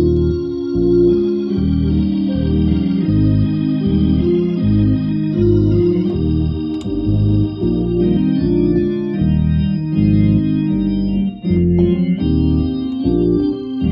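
Hammond organ playing sustained chords over bass notes that change about every second.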